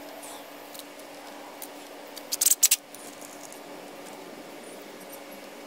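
Small metal hardware jingling and clinking for about half a second, a little past two seconds in, as loose fasteners are handled, over a faint steady hum.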